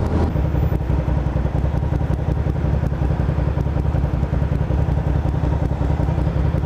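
2009 Suzuki SV650S's 645 cc V-twin engine idling steadily at a stop, with wind noise dropping away just after the start as the bike comes to rest.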